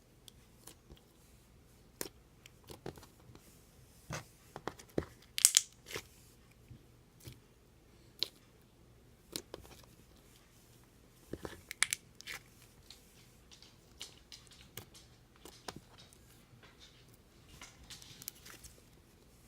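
Slime being handled, pressed and pulled, giving scattered sticky pops and crackles, with louder clusters about five and a half and twelve seconds in.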